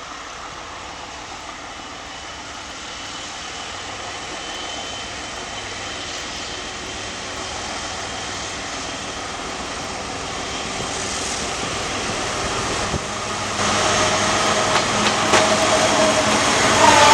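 ALCo RSD16 diesel locomotive approaching, its engine drone growing steadily louder. Over the last few seconds it gets much louder, with several steady tones rising out of it as the locomotive nears.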